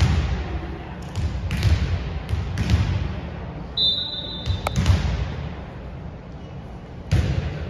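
Volleyballs being hit in a passing drill: a string of thumps from balls striking players' arms and bouncing on a hardwood gym floor, roughly one every second or two, each ringing out in the echoing gym. A brief high squeak comes about halfway through.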